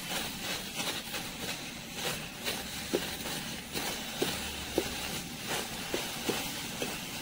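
Perforated steel ladle scraping and knocking against an aluminium kadai as neem leaves are stirred and tossed, about one or two irregular clinks a second, over a steady hiss of the leaves frying in the hot pan.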